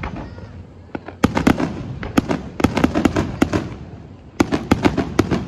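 Aerial firework shells bursting overhead: sharp bangs coming in quick volleys, a cluster about a second in, a dense run through the middle and another near the end, each with a short echoing tail.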